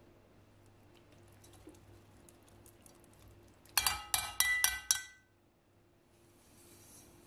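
Metal mesh strainer rapped about six times in quick succession against the rim of an enamelled pot, making sharp ringing clinks as it knocks out tangerine peels.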